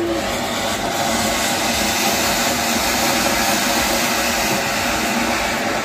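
Ground fountain firework (anar) spraying sparks: a loud, steady rushing hiss.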